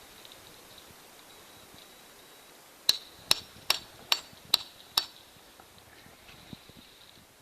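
Six hammer strikes on a steel piton, each with a clear metallic ring, evenly spaced at a little over two a second.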